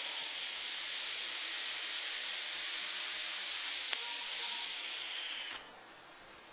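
Steady hiss of a long direct-lung draw on a rebuildable dripping atomizer (Grand Vapor Trident) with the coil firing, cutting off about five and a half seconds in. A small click about four seconds in.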